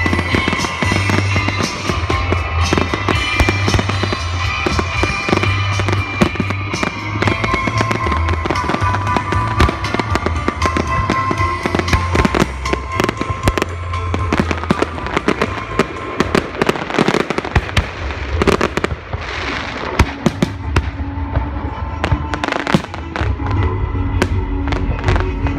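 Aerial fireworks bursting in quick succession, a dense run of sharp bangs and crackling pops, with music playing steadily underneath.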